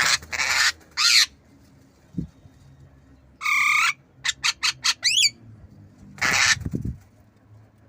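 Javan myna giving a series of harsh squawks near the start and again near the end. In the middle it makes a nasal call, then a quick run of about five sharp clicks ending in a short falling note.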